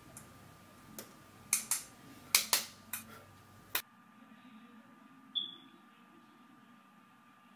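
Several sharp clicks and taps in quick succession, then a single one near the middle: small makeup items and brushes being handled.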